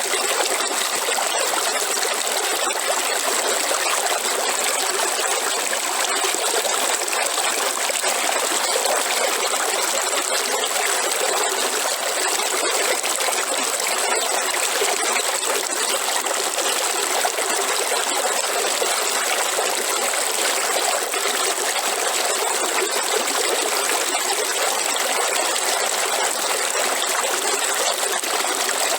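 A river's flowing water: a steady rush with fine splashing and trickling over rocks.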